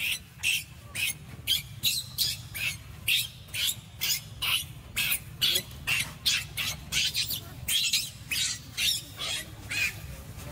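Newborn baby macaque crying in short, high-pitched squeals, about two or three a second without a break: distress cries while its mother pulls at and handles it.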